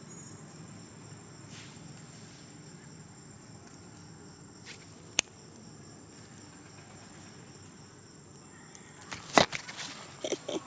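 Insects droning steadily in one thin high tone over faint background noise. One sharp click comes about halfway, and a quick run of louder clicks and knocks near the end.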